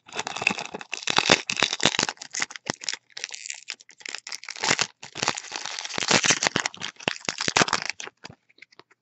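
Foil booster-pack wrapper crinkling and rustling as it is torn open by hand, in spells with two short breaks, stopping about eight seconds in.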